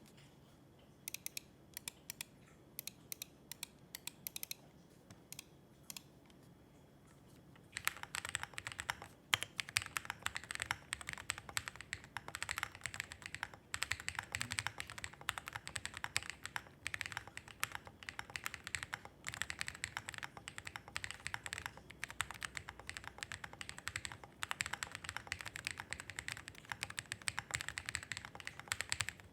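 Owlab Spring 65 custom mechanical keyboard with a POM plate, Matcha switches and KAT-profile keycaps being typed on. For the first several seconds single keys are pressed one at a time; from about eight seconds in it becomes fast, continuous typing.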